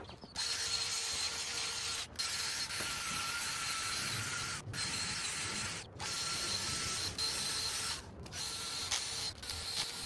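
Cordless drill spinning a scrub brush on a soapy car floor carpet: a steady motor whine over the brush scrubbing. It starts about a third of a second in and cuts out briefly several times.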